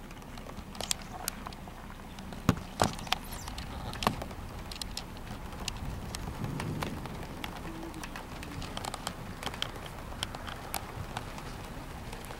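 Scattered raindrops striking close to the microphone in irregular sharp taps, the loudest about two and a half and four seconds in, over a steady low background noise.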